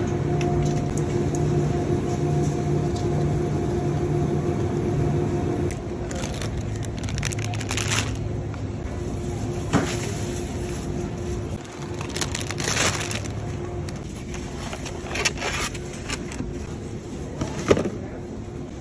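Thin plastic produce bags crinkling in short bursts as groceries are handled in a wire shopping cart. A steady low hum sits underneath for the first several seconds.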